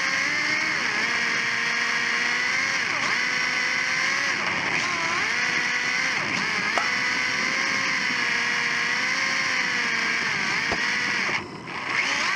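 Onboard sound of a Sakura D4 RC drift car: its electric motor and drivetrain whine, with the pitch dipping and climbing again and again as the throttle is worked through the drifts. The sound drops out briefly near the end.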